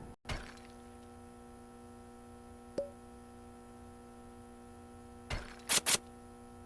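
Faint steady hum made of several fixed tones, with one short tick a little under three seconds in and three sharp clicks near the end.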